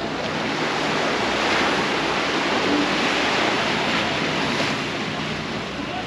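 Sea waves washing onto the beach: a steady rushing surf that swells and then eases off near the end.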